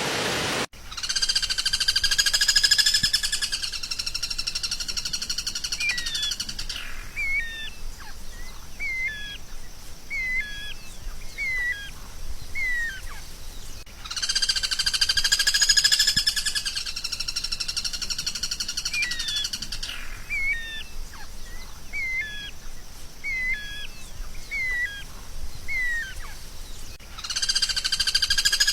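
Recorded songbird song played as a repeating loop: a bright buzzy trill lasting several seconds, then a run of short whistled notes that each slide down in pitch, about one a second. The phrase repeats about every 13 seconds, starting just after a rushing noise cuts off about a second in.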